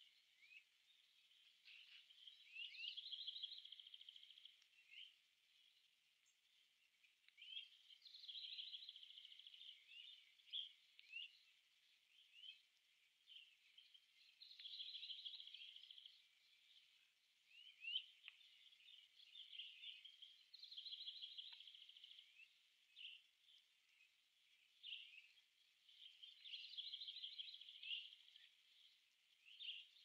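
Faint songbird song: a short phrase of rising slurred notes that runs into a fast trill, repeated about every six seconds, with scattered single chirps between the phrases.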